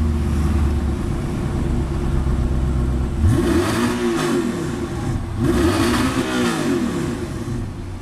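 Audi R8's 4.2-litre V8 through a Fi Exhaust valved catback, idling steadily. About three seconds in it is blipped several times, the pitch rising and falling back with each rev.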